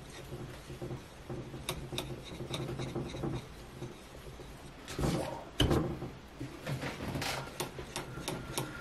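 Sharpening stone rubbing in repeated strokes along a steel hatchet edge, with small ticks. About five seconds in come a few louder knocks and scrapes.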